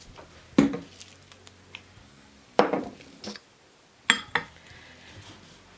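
Bottles, containers and utensils being handled on a kitchen counter: about five separate sharp knocks and clinks. One, about four seconds in, rings briefly.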